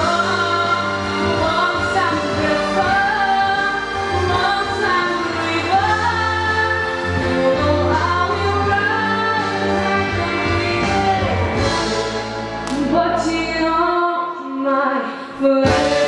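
A young woman sings a song into a handheld microphone over instrumental accompaniment. About two seconds before the end the bass drops out and the sound thins briefly, then the music comes back in.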